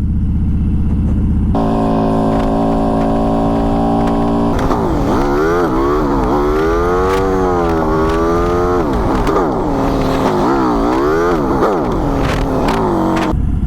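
Motorcycle engine heard from the rider's position. After a low rumble it holds a steady note for a few seconds, then pulls away, its pitch climbing and dropping several times as it works up through the gears. Near the end it falls back to a low rumble.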